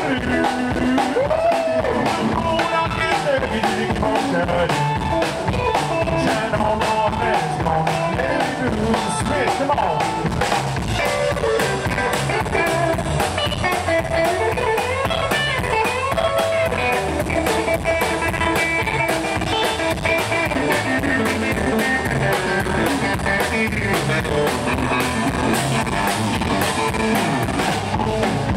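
Live rockabilly band playing a steady, driving rock 'n' roll beat: electric guitar over drum kit and upright bass.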